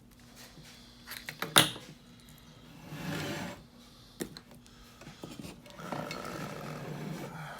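Metal lock picks and the lock being handled and put away: a few sharp metallic clinks about a second and a half in and again near the middle, with stretches of scraping and rubbing.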